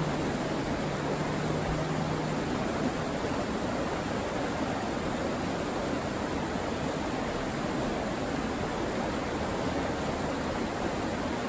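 Salmon River rapids: fast, shallow water rushing over rocks in a steady, even rush. A faint low hum sits under it for the first couple of seconds.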